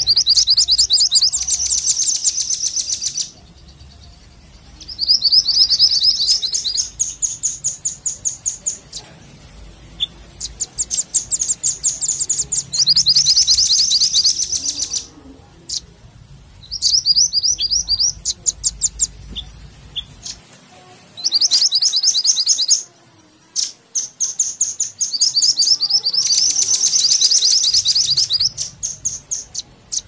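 A small songbird calling in bouts of rapid, high, sharp chips. There are about seven bouts, each lasting one to five seconds, with short pauses between.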